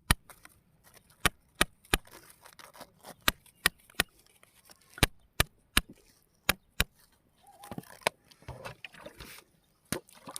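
A series of sharp knocks or clicks, about fifteen in ten seconds at uneven spacing, like hard objects striking one another.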